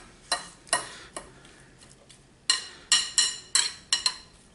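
A metal fork clinking in a mixing bowl: a few light clinks, then a quick run of about seven ringing taps against the bowl, starting a little over two seconds in.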